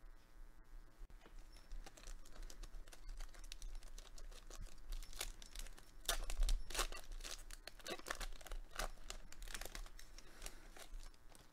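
Crinkly wrapper of a Weiss Schwarz trading-card booster pack being handled and torn open, a run of crackling and tearing that is loudest about six to seven seconds in.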